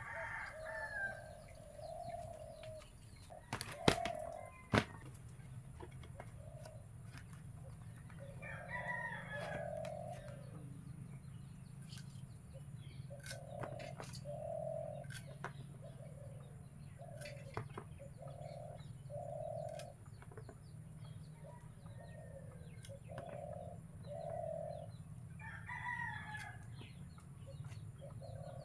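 A rooster crowing three times: at the start, about nine seconds in and near the end, with short calls repeating in pairs between the crows. Two sharp knocks come about four seconds in.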